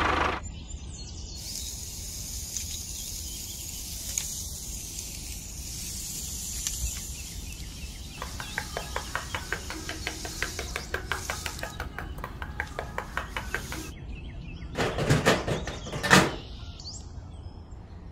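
Sand and fine gravel trickling out of a toy tipping trailer with a soft hiss, then a small trowel scraping and patting the sand in quick even strokes, about four a second. Near the end, a couple of louder handling knocks and rustles.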